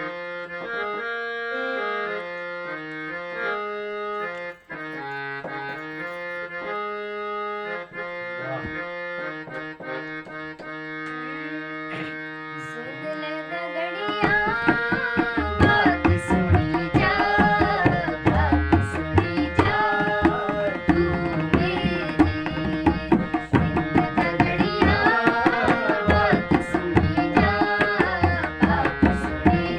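Instrumental introduction of a Kumaoni folk song: a reed-toned keyboard melody of held notes plays alone, and about fourteen seconds in hand drums join with a fast, steady rhythm and the music grows louder.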